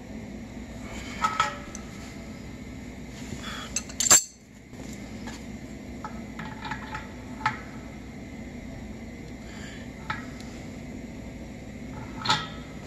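Metal clinks and taps as an adjustable wrench works on brass drain-valve fittings and the valve's solenoid coil is handled on its steel stem. The clinks come in scattered single strokes and short clusters, the loudest a little before halfway, over a faint steady hum.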